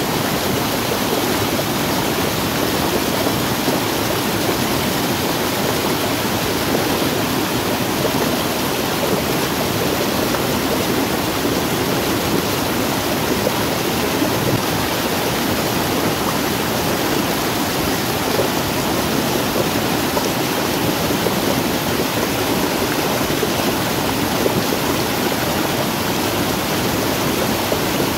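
Rainwater runoff rushing steadily down a small rocky cascade in an eroded gully, a constant loud water rush.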